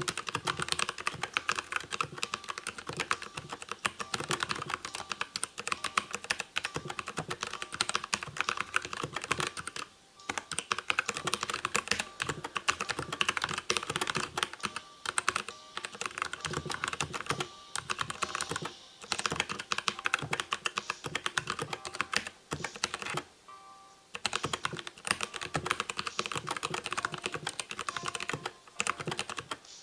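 Fast, continuous typing on a Dierya DK63 mechanical keyboard with brown switches and sound-dampening foam, a dense patter of key clicks, broken by short pauses about ten seconds in and again near twenty-four seconds.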